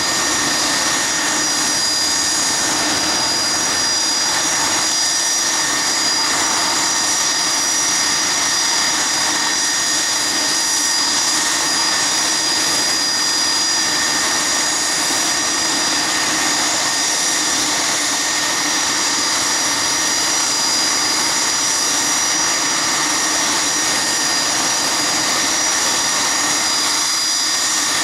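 Steady jet whine from an idling regional jet: several held high tones over a continuous hiss and a low hum, unchanging.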